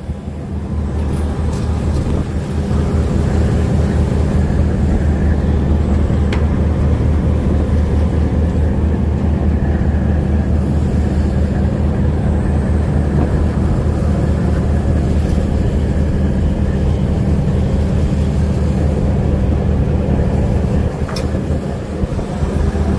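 A fishing boat's engine running steadily with a low hum, dipping briefly near the end.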